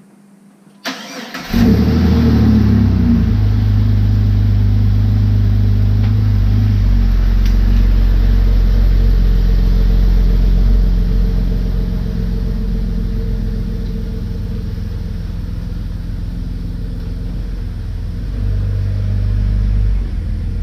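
A vehicle engine cranks briefly, catches about a second and a half in and revs up, then settles to a steady run that eases lower around the middle and rises again near the end.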